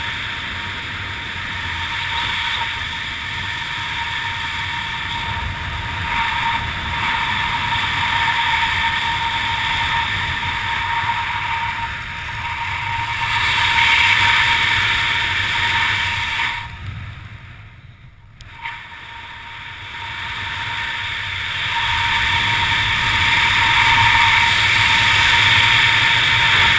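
Wind rushing over a head-mounted camera's microphone during a parachute canopy descent, a steady rushing noise that falls away sharply for about two seconds past the middle, then comes back.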